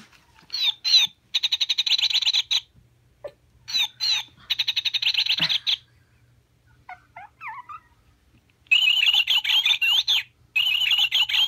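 Sound chips in squeezable plush animal toys playing recorded animal calls. First come two identical rapid, rattling trills of about two seconds each. After a pause, a longer run of quick, high chirps and squawks plays from a plush parrot.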